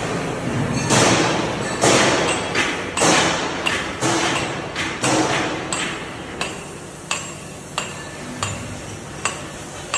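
A series of sharp knocks, about one or two a second, each ringing briefly. The strikes near the start are the loudest, and later ones are shorter and lighter.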